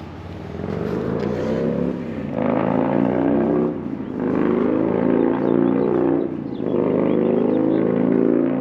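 Motorcycle engine accelerating through the gears: the pitch climbs, drops briefly about four seconds in and again about six and a half seconds in as it shifts up, then climbs again.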